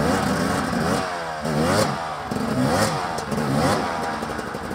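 Husqvarna enduro motorcycle engine revved in about five short bursts a little under a second apart, pitch rising and falling with each, as the bike is stuck on a steep slope and being pushed free.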